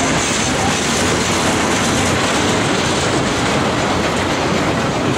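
Tank cars of a Norfolk Southern freight train rolling past close by: a loud, steady noise of steel wheels running on the rails.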